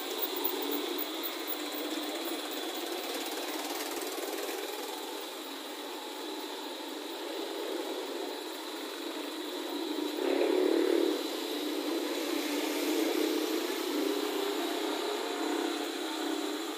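Street traffic: small motorcycle and motor-tricycle engines running on a wet road, with one passing louder about ten seconds in.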